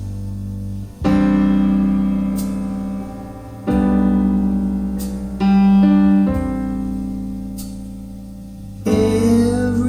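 Recorded piano music played back through Jamo Power 230R loudspeakers: slow, sustained chords, a new one struck every second or few and left to fade.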